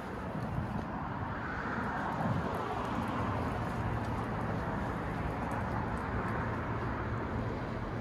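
Steady outdoor background noise with a low rumble, the sound of vehicle traffic around a car lot.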